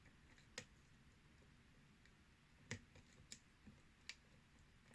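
Faint, sparse clicks of a lock pick and tension wrench working the pins of a Yale-style pin tumbler lock, about six irregular ticks.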